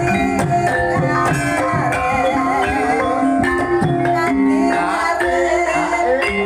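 Banyumasan lengger dance music: an ensemble of struck and plucked instruments playing steadily, with a singer's wavering voice coming in about one and a half seconds in.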